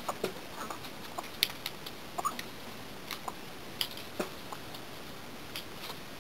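Chickens pecking and stepping on hard, dry dirt: scattered light taps and clicks, with a few brief soft clucks from the flock.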